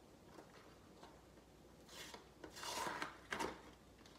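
Packing material in a shipping box rustling and rubbing as it is handled, in a few short bursts, the loudest about three seconds in.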